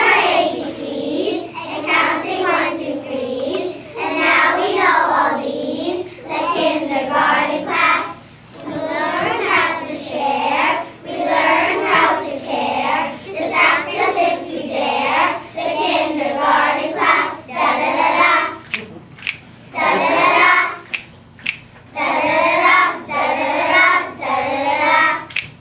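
A class of young kindergarten children singing a song together as a group, in phrases of a few seconds with brief pauses between them.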